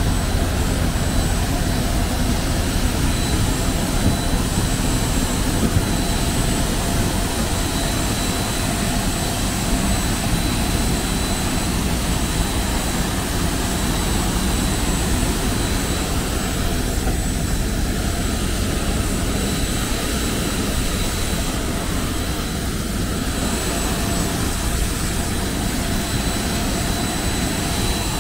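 Steady jet aircraft noise on an airport apron: a continuous rumble with a thin, high, steady whine over it.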